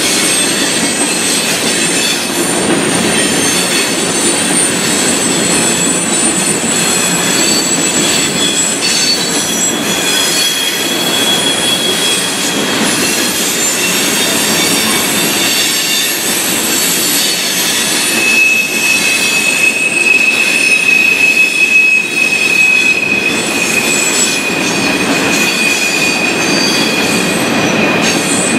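Freight train of covered hopper cars rolling past with a steady rumble of wheels on rail and high, steady wheel squeal. The squeal tones come and go, and the strongest is held through the last third.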